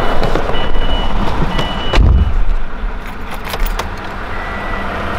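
A Subaru WRX's driver's door shuts with a heavy thump about two seconds in. Before it, a few short high electronic beeps repeat about once a second, and fainter beeps come again near the end.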